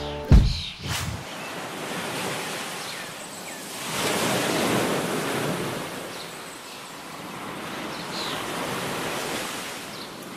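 Sea surf washing onto a sandy beach, a steady rush of waves that swells about four seconds in, with some wind on the microphone.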